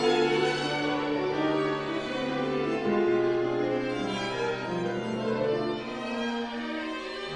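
Chamber music from a piano quintet, with violins, viola and cello playing sustained bowed notes. A low cello note is held, steps down to a lower pitch about three seconds in, and drops out near six seconds while the upper strings go on.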